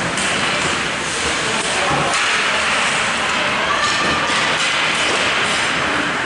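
Steady noisy din of an indoor ice rink during a hockey game: skates scraping and cutting the ice, with faint shouting voices a few seconds in.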